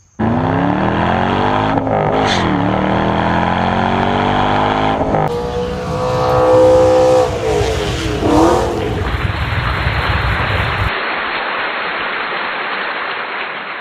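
Car engine revving and accelerating, its pitch climbing and falling several times across abrupt edits. About eleven seconds in, the engine note gives way to a steady rushing noise.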